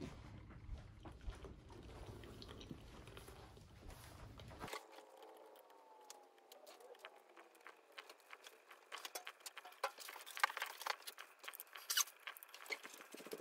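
recolte fully automatic drip coffee maker at work: faint crackling and ticking, with a duller rumble in the first few seconds, and clicks and pops growing busier over the last five seconds as hot water starts coming through into the carafe.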